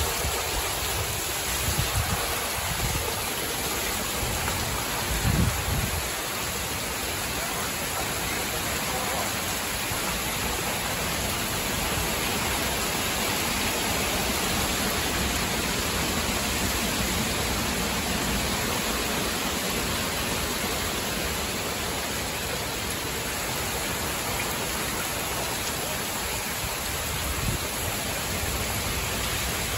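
Heavy rain pouring steadily during a severe thunderstorm, a dense even hiss. A few brief low rumbles come near the start and about five seconds in.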